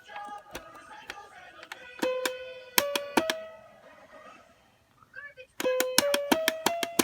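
Musical toy playing short runs of notes that climb step by step in pitch, each note starting with a sharp click, with a brief pause in the middle.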